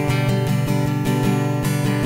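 Acoustic guitar strummed in a steady, even rhythm.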